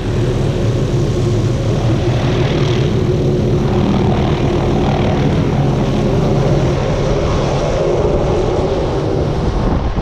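Helicopter's engine and rotor running loud and steady as it lifts off and departs with the hunters aboard.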